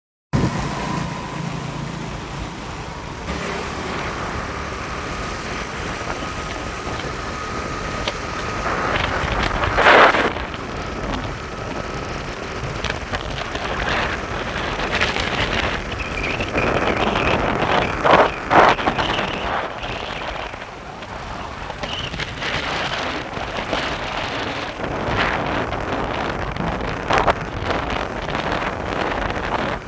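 Vehicle on the move: a steady rush of road and wind noise, with a loud knock about ten seconds in and two close knocks a little after eighteen seconds.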